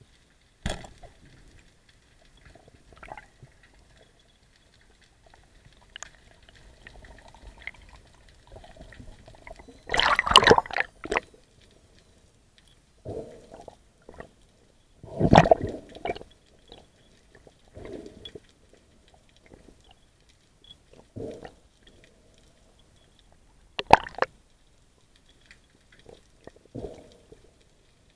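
Underwater gurgling and knocks heard through a camera's waterproof housing, coming in irregular bursts. The loudest bursts come about ten and fifteen seconds in, and there is a sharp click near the end.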